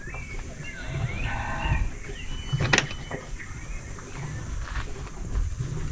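A farm animal calling once for about a second, starting about a second in, with a sharp click a little later.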